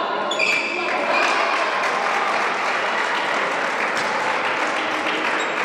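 Spectators applauding, steady clapping for a point just won.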